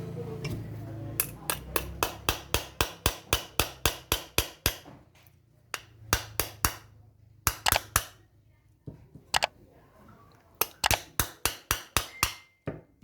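Light hammer tapping on a small workpiece: quick runs of sharp taps, about five a second for several seconds, then short runs of taps with pauses between.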